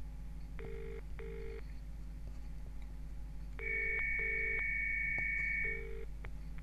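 Telephone ringing tone heard down the line: the British double 'burr-burr' ring, two short rings then a pause, repeating, over a steady electrical hum. A high steady two-note electronic tone is held through the middle of it.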